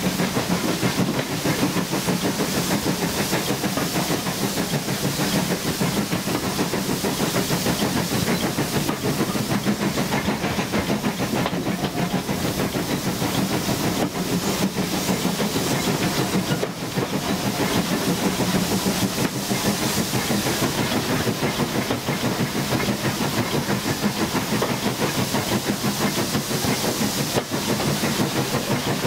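LMS Ivatt Class 4 2-6-0 steam locomotive No. 43106 working a train along the line: steady exhaust and steam hiss mixed with the running noise of wheels on rail, heard close alongside the engine.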